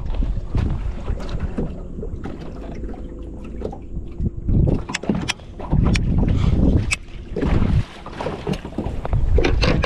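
Wind buffeting the microphone in uneven gusts, with a few sharp clicks and knocks about halfway through.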